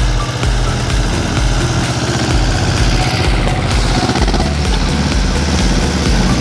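Ursus C-330M tractor's two-cylinder diesel engine running steadily under load as its rotary mower cuts through raspberry canes.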